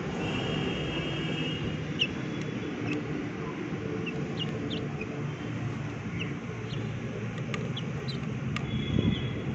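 Chickens pecking grain from a metal pan, their beaks striking the pan in scattered sharp clicks, over a steady low rumble. A few short high chirps are heard.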